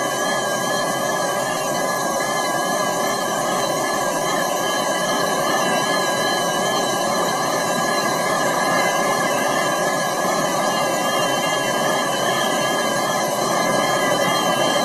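Jet airliner's turbofan engines running: a steady rush of noise with a high, slightly wavering whine over it.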